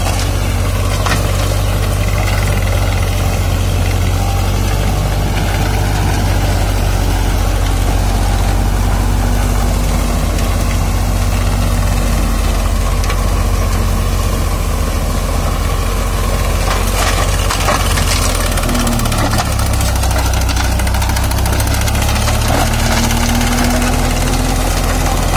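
Tractor diesel engine running steadily under load while driving a PTO-powered mulcher that shreds standing pearl millet stalks. The engine note drops a little about three-quarters of the way through.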